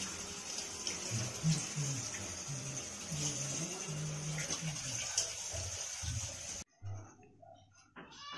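Banana bajji deep-frying in hot oil in a kadai: a steady, hissing sizzle. It cuts off suddenly near the end, leaving a few light clicks.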